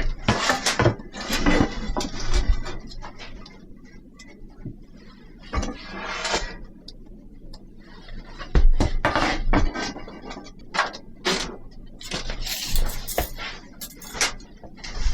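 Irregular clinks and knocks of dishes, pots and cutlery being handled, with short stretches of rustling between them.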